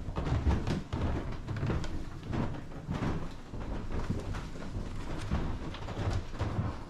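Irregular knocks and low rumble of someone walking through the rooms with a handheld camera: footfalls and handling noise.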